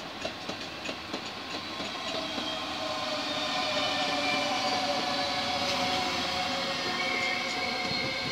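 NS double-deck electric passenger train passing close by. Its wheels click over rail joints at first, then the running noise swells, with a steady whine that holds as the carriages go by.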